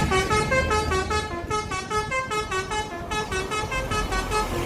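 Battery-operated toy container truck playing its electronic sound effect: a quick melody of short, bright notes, several a second, over a low engine-like hum.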